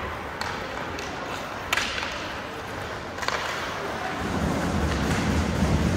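Ice hockey rink sound: sharp clacks of sticks and puck, three of them, the loudest about two seconds in. They come over the hollow rink noise and distant voices, and a low rumble rises in the second half.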